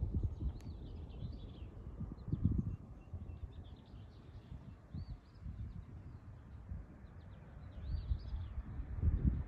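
Wind buffeting the microphone in uneven low gusts, loudest about two and a half seconds in and near the end, with small birds chirping in short, rising-and-falling calls throughout.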